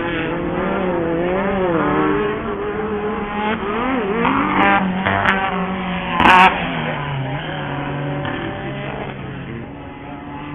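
Several off-road race buggy engines running hard, their pitch rising and falling as they rev and shift. A brief loud crack comes about six seconds in.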